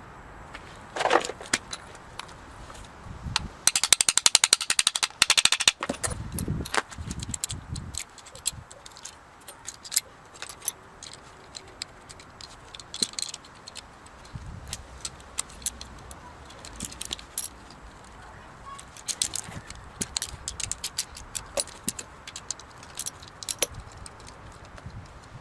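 Metal tools and parts clinking and rattling during hand work, with a dense run of fast clicks about four to six seconds in.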